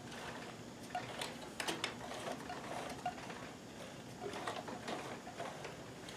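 Kenmore 158.1914 sewing machine with a walking foot, its mechanism giving faint, irregular clicks and ticks as it works slowly through a thick stack of cotton layers.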